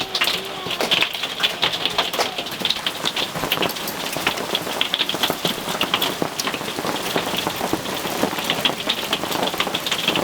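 Hail pelting a roof: a dense, steady rattle of many small sharp impacts.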